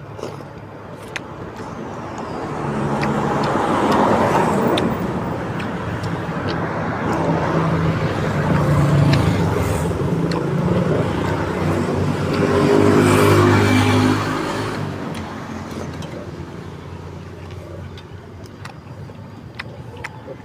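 Road traffic: engine noise from vehicles passing close by, swelling and fading three times, with light clicks in between.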